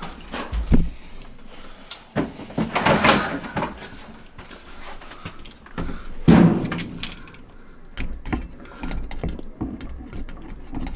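Steel drain-snake cable rattling and scraping against the threaded cleanout as it is worked into a clogged inch-and-a-half kitchen drain line, in irregular bursts with knocks.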